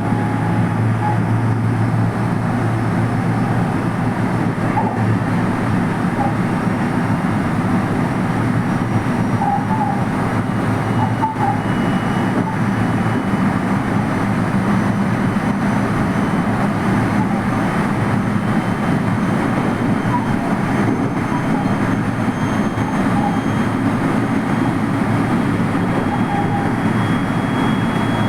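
JR West 223 series electric train running at speed, heard from the front cab: a steady, dense rumble of wheels on rail, with a faint high whine that slowly rises in pitch.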